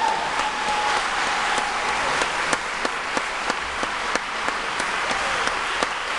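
Audience applauding steadily, with some individual claps standing out.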